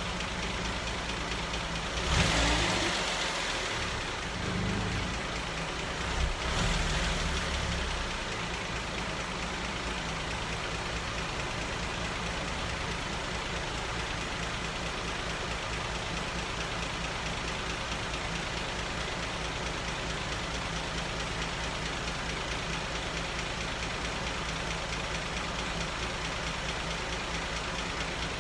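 Cadillac 3.6-litre V6 running on its first start after a full engine rebuild, mostly steady at idle, with two brief louder surges about two and six seconds in.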